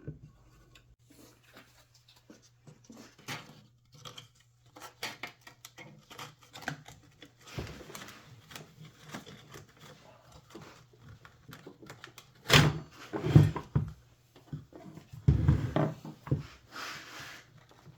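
Clicks, knocks and handling clatter from a belt sander's housing and parts being worked by hand during reassembly, with several louder knocks in the second half. A steady low hum runs underneath.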